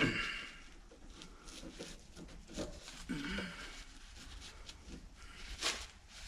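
Scattered light clicks and taps of metal hinge parts being handled and fitted on a workbench, with a sharper knock about five and a half seconds in.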